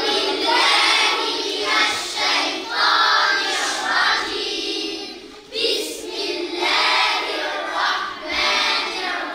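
A group of children chanting together in unison, with a short break for breath a little over halfway through.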